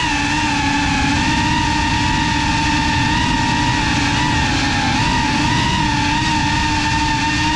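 Geprc Cinelog35 cinewhoop's brushless motors and propellers whining at a nearly steady throttle, the pitch dipping slightly now and then, over a rush of air from the props.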